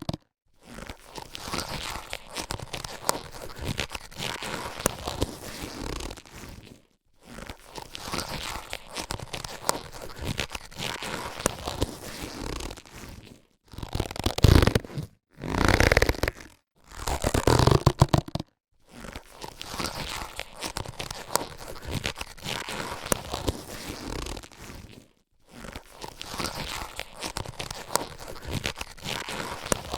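Latex surgical gloves being handled, rubbed and stretched: crackly, rubbery rustling in stretches of several seconds with brief pauses between them, and three louder bursts around the middle.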